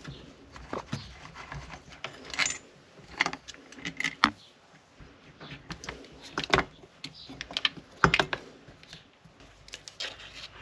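Irregular metallic clicks and clinks of hand tools and small chainsaw parts being handled during a teardown, with a few sharper knocks about two, four, six and a half and eight seconds in.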